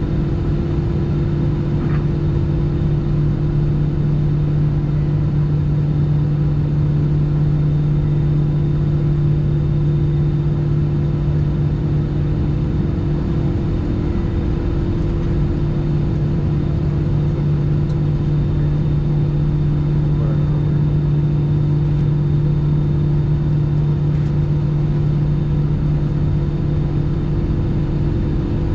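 Cabin noise of an Airbus A319 standing on the ground with its engines at idle: a steady low drone with a second, higher steady hum above it, unchanging throughout.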